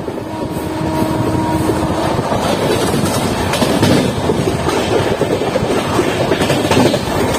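Express train with LHB passenger coaches running at speed, heard at an open coach door: wheels clattering over the rails and wind rushing past. A steady tone is heard at the start and stops about two seconds in.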